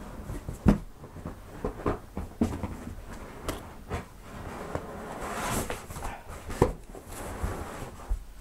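Cardboard shipping box and packaging being handled and pulled open: irregular knocks and thuds with scraping and rustling of cardboard, a longer scraping rustle about five seconds in.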